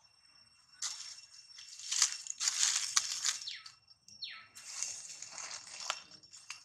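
Dry fallen leaves crunching and rustling underfoot in two long stretches, with a brief falling squeak about four seconds in.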